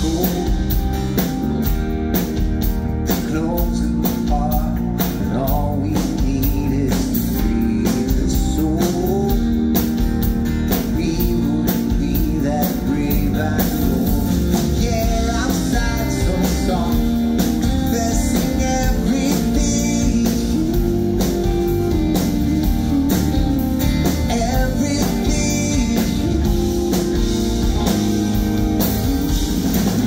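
Live rock band performing a song: a man singing lead vocals over a strummed acoustic guitar, with the band playing behind him.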